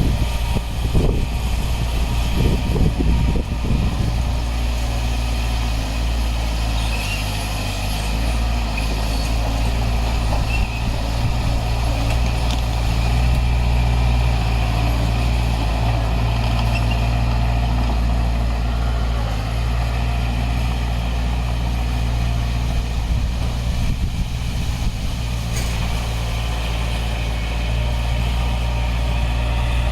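Heavy construction machine's diesel engine running steadily under load, with some knocking in the first few seconds.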